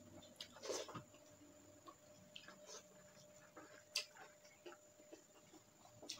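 Close-miked eating sounds: soft, scattered mouth clicks and smacks while chewing, with fingers working rice on a banana leaf. A louder smack comes a little under a second in, and a sharp click at about four seconds.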